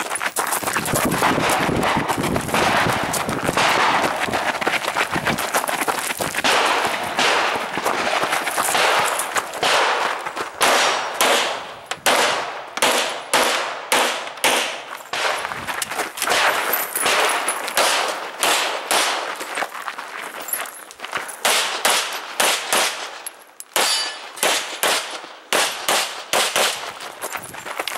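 Rapid gunfire from a competitor shooting a practical-shooting stage. The shots come in quick strings, dense at first and then as distinct shots several a second, with a short break near the end.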